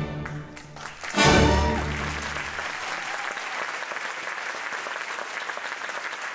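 Ballet music ending on a loud final chord about a second in that rings out and fades, overlapped by audience applause that carries on steadily.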